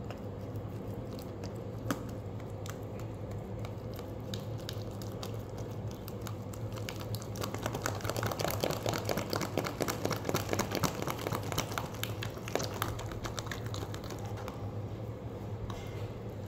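Glossy slime being stirred and folded with a metal spoon in a plastic tub: a run of quick sticky clicks. They speed up and get louder partway through while the stirring is fast, then thin out again. A steady low hum sits underneath.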